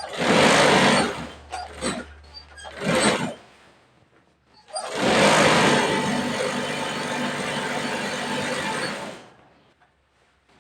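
Industrial feed-off-the-arm chainstitch sewing machine running. It sews in three short bursts, then in one longer run of about four seconds that stops near the end.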